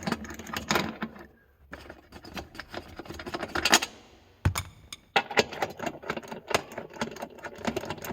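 Irregular clicks, taps and scrapes of tools and metal fasteners as the loosened nuts are taken off the access plate over the fuel pump, with a sharper knock about halfway through.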